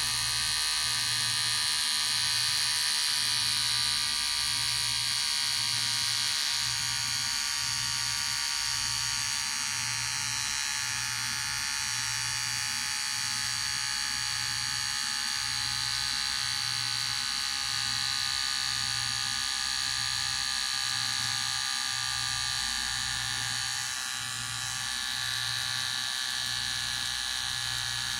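Electric hair clipper running steadily, a continuous buzz with a faint low pulse about once a second.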